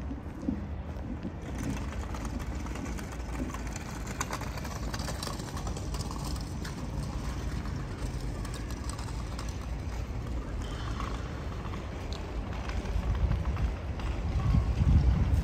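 Outdoor city ambience: a steady low hum of distant traffic with faint scattered clicks, and a deeper rumble that swells over the last couple of seconds.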